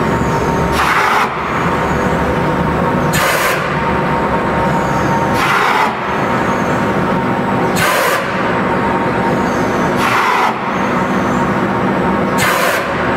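Egg tray (pulp moulding) production line running with a steady mechanical hum, broken about every two and a half seconds by a short hiss of released air, six times in all.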